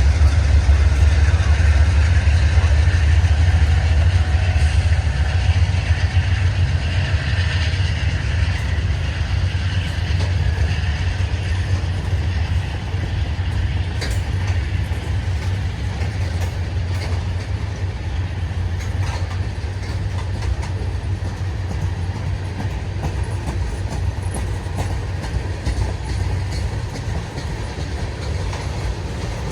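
Freight train running on the rails with a heavy, steady low rumble that slowly eases off, with a few sharp clicks from the wheels and cars.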